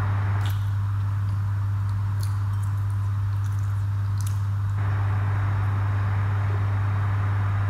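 A steady low hum, with a few faint clicks from eating by hand: fingers working rice and fish curry on a plate, and chewing.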